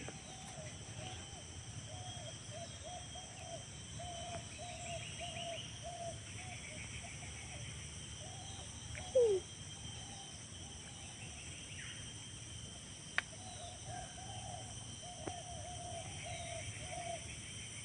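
Rural outdoor ambience dominated by a bird repeating short hooting notes, about two a second, in long runs. Fainter insect chirping sits underneath. One louder, brief falling call comes about nine seconds in.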